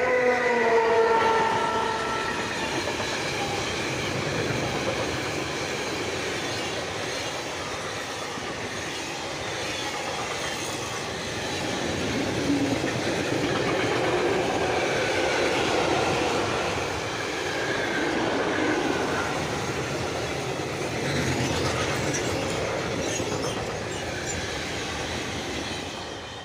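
A locomotive horn sounds as a long freight train arrives, its pitch dropping as it passes. The train's open and hopper freight wagons then run by close at hand, their wheels rumbling and clicking over the rail joints, until the sound falls away near the end as the last wagons pass.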